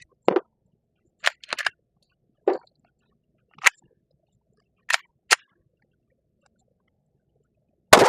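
Sharp clicks and clacks of a Glock G44 .22 LR pistol being handled after a failure to eject. Near the end comes a single .22 LR shot with a short echoing tail. That shot again fails to eject with the 29-grain Federal Punch rounds.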